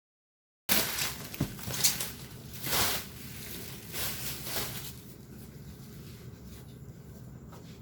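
Graphics-card box and its packaging being handled and opened: a run of rustles and scrapes that starts abruptly a little under a second in, loudest over the first few seconds, then quieter rustling.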